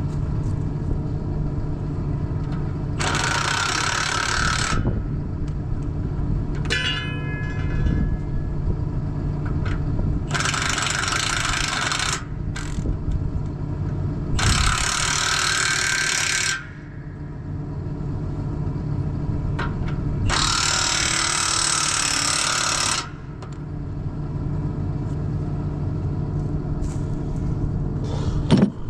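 Tractor diesel engine idling steadily. Over it, an impact wrench runs in four bursts of about two seconds each while bolts on the disc gangs are worked. A sharp knock comes near the end.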